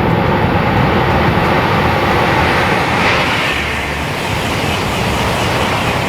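Mountain stream rushing steadily, running high and swollen after the previous day's rain.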